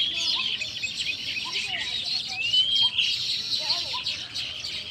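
Dense chorus of many small birds chirping over one another, with one longer call that rises and falls about halfway through.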